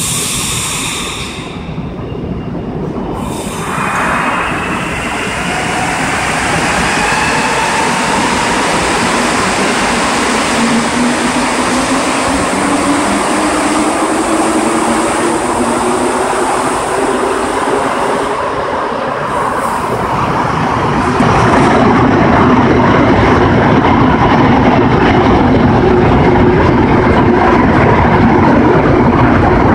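A rubber-tyred MPM-10 (Azur) metro train pulling out and accelerating past: its traction motors whine, several tones climbing steadily in pitch over a dense running noise. The noise gets louder and steadier in the last third.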